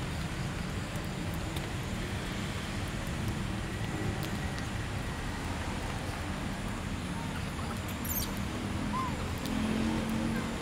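Steady low outdoor background rumble, with a few faint clicks and a short, faint chirp near the end.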